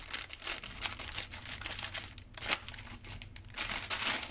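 A foil-lined plastic snack packet crinkling as it is cut open with scissors and pulled apart by hand, in irregular crackles.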